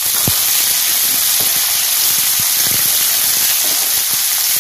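Chopped onion sizzling in hot oil in a kadai, on top of a tempering of mustard seeds, cumin, dals and garlic: a loud, steady hiss that steps up in loudness at the start as the onion hits the oil.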